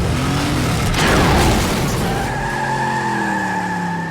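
Cartoon action sound effects: a loud rushing noise with a sweep falling in pitch about a second in, then a steady high ringing tone with lower tones sliding slowly down as it fades.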